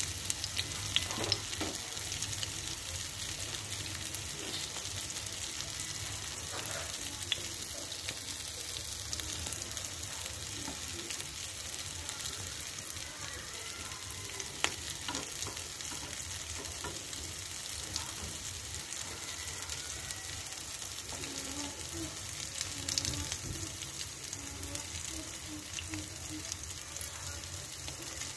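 Hot oil sizzling steadily around discs of glutinous rice (xôi chiên) shallow-frying in a pan, with scattered sharp crackles and pops.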